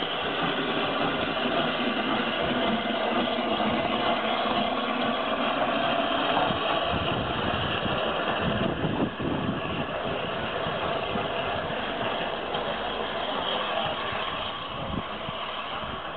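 Metropolitan Railway No. 1, an 0-4-4 tank steam locomotive, hissing steam steadily as it pulls away with its cylinder drain cocks open. A few heavier, irregular exhaust beats come in from about halfway through.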